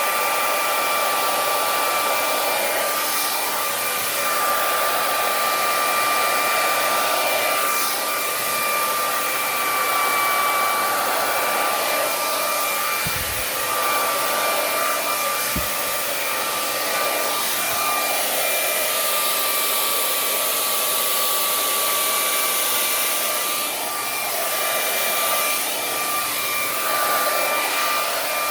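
Handleless hair dryer blowing continuously, a steady rush of air with a high whine from its motor fan, swelling and dipping slightly as it is moved through the hair. Two brief low thumps come about 13 and 16 seconds in.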